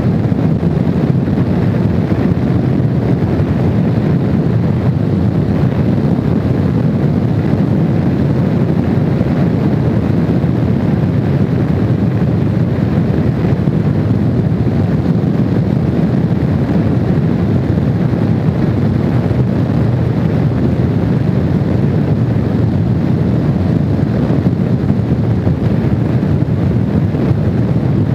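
Steady wind and road noise from a Honda VFR750 motorcycle riding at speed, with wind buffeting the microphone; the level holds even throughout, as at a constant cruise.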